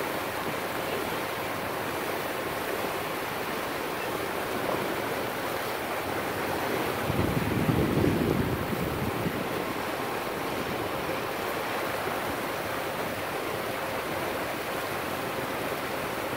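Sea surf washing over a rocky shoreline, with wind buffeting the microphone; a louder rush lasting a couple of seconds comes about seven seconds in.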